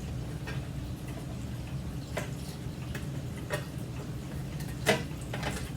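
A few scattered sharp clicks and light knocks from something being handled and unpacked, the loudest near the end, over a steady low hum.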